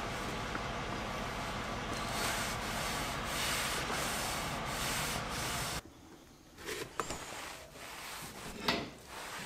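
Cloth rag rubbed briskly back and forth along a wooden hammer handle, working in boiled linseed oil, a steady scrubbing in repeated strokes. About six seconds in it stops suddenly, followed by quieter rag wiping on the steel hammer head and a couple of light knocks, the sharpest near the end.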